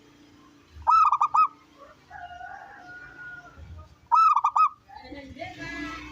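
Zebra dove (perkutut) cooing: two loud bursts of about four quick, ringing notes each, some three seconds apart. Fainter calls sound between and after them.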